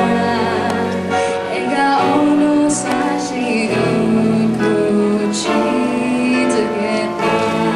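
A live performance of a Japanese pop song: a female voice singing, accompanied by piano and guitars.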